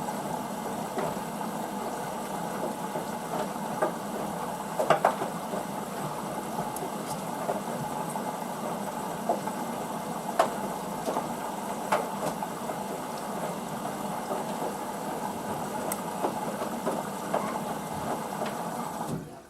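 Hoover DYN9144D3X washing machine running its wash cycle: a steady motor and drum hum with scattered sharp clicks. The sound cuts off abruptly just before the end.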